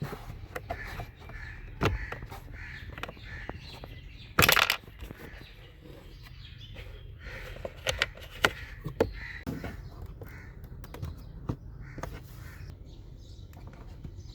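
Plastic glove box parts being handled: scattered clicks and knocks as the hinge pins are pinched and slid out of the Kia Sportage's glove box, with one louder plastic rattle about four and a half seconds in.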